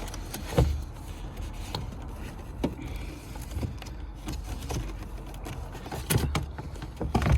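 Scattered plastic clicks, knocks and light scraping as a plastic trim tool works at the manual window winder handle and its retaining clip on a car door, with a cluster of knocks near the end.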